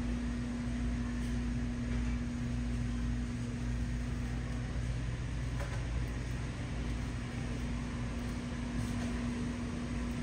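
Steady hum of a grocery store's refrigeration and ventilation machinery: one constant low tone over a low rumble and an even air hiss.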